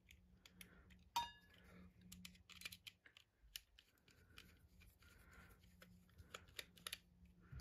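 Faint clicks and light scrapes of small metal parts being handled as a screw is fitted into a ceiling-fan light kit, with one sharper metallic clink about a second in that rings briefly.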